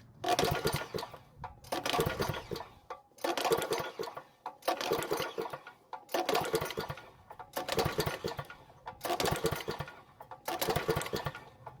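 Pull-cord recoil starter of a Powermate generator's small engine pulled eight times in a row, each pull spinning the engine over briefly without it firing. The engine is being cranked against a compression tester and makes barely over 10 psi, because the intake rocker arm has come off its valve.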